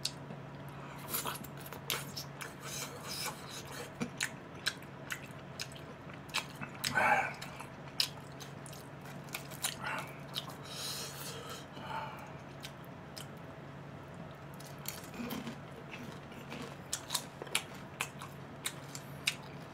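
Close-miked eating of spicy tteokbokki: chewing with many small sharp clicks scattered irregularly, a little louder about seven seconds in, over a faint steady hum.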